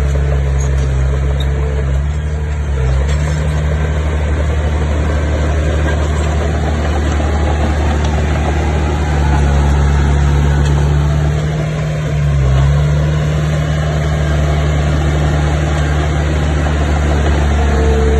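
Bulldozer's diesel engine running steadily with a deep, even hum. It works a little harder partway through, then its pitch dips briefly and picks up again about twelve seconds in.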